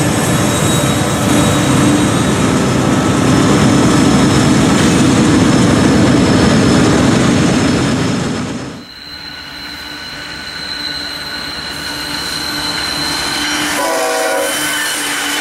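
Model Utah Belt diesel locomotives and train running: a loud, even engine-and-wheels noise that cuts off suddenly about nine seconds in, giving way to a quieter engine drone with a steady high whine. A short horn blast sounds near the end.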